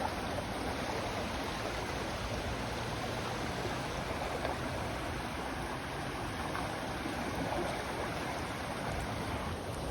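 Floodwater rushing steadily past, a continuous even rush of water.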